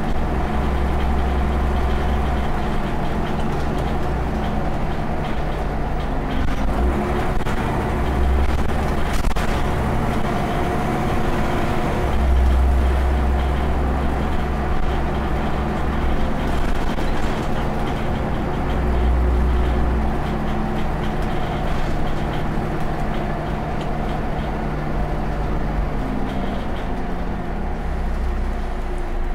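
Scania OmniCity single-deck bus heard from inside the cabin while under way: the rear-mounted diesel engine runs steadily over road noise, with a deep low rumble swelling and fading several times and the engine note dropping near the end as the bus slows.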